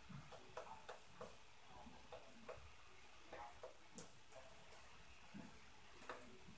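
Faint, irregular clicks and soft thuds, a few a second, with a sharper click about four seconds in: footsteps and knocks from the apartment upstairs, heard through the ceiling in a quiet room.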